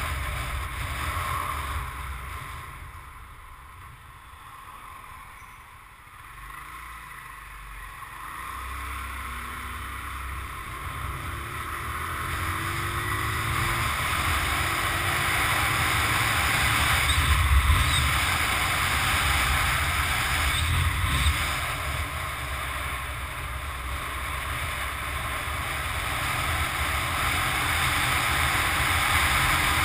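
Wind rush and road noise on a moving motorcycle, with the engine running underneath. It quietens for a few seconds near the start, then builds steadily and stays loud.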